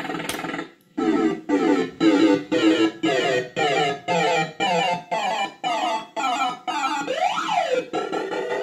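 Bell-Fruit Cash Explosion fruit machine playing its electronic jingle: a run of evenly spaced synth notes about two a second, a pitch sweep up and back down near the end, then a warbling tone. This is the machine's sound effects during a feature or win.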